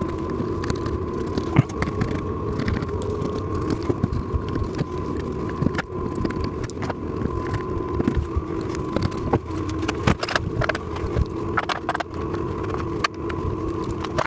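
Wooden furniture panels and small metal fittings being handled and fitted together: scattered knocks, clicks and small rattles over a steady background hum.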